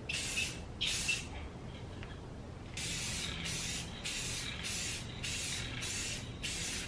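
Aerosol spray can of matte clear coat hissing in short bursts over a painted helmet: two quick sprays, a pause of over a second, then a run of about seven short bursts in quick succession.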